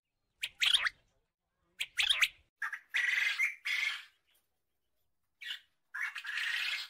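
Quail calling: a run of high bird calls in several bursts, some short and some lasting about a second, with a pause of about a second before the final calls.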